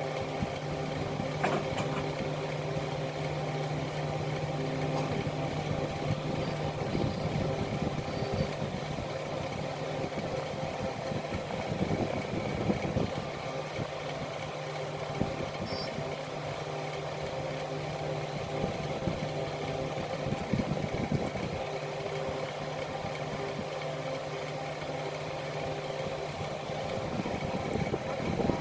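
A steady mechanical hum with a constant low tone, like a machine running, with irregular clattering and handling noise coming and going several times over it.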